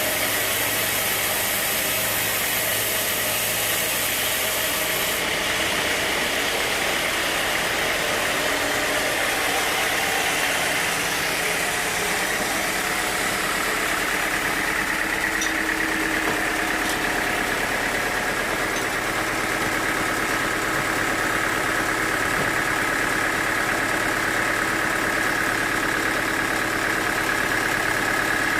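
Sawmill machinery running steadily, a continuous mechanical drone with a high whine that sinks slowly in pitch.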